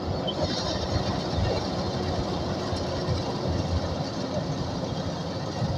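Kubota DC105X combine harvester running steadily, its diesel engine and machinery making a continuous rumble with a faint steady hum.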